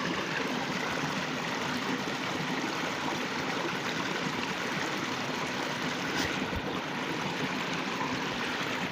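Steady sound of a stream's flowing water rushing and trickling.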